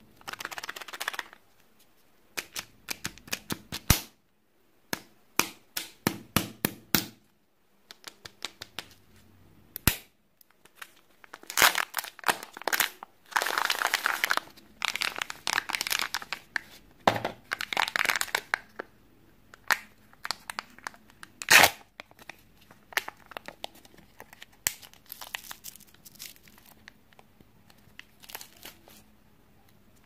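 A Kinder Joy egg being unwrapped by hand: irregular crinkling and tearing of its plastic wrapper and foil lid, with sharp clicks and snaps in between, the loudest about twenty seconds in.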